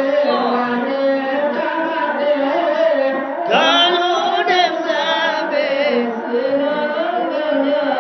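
Chant-like singing over steady held tones. About three and a half seconds in, a louder voice enters for a couple of seconds with a wavering, trembling pitch.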